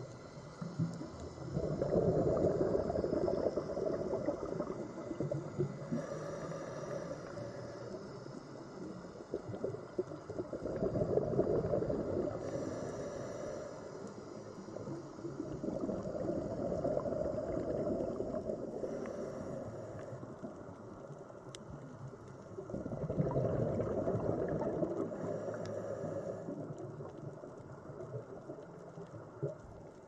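Underwater scuba breathing: a diver's regulator letting out bubbling exhalations about four times, each lasting several seconds, with quieter stretches between.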